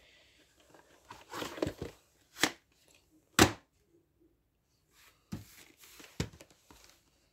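Plastic VHS cassette and case being handled: a rustle, then two sharp plastic clicks about two and a half and three and a half seconds in, and a few more knocks and clicks near the end.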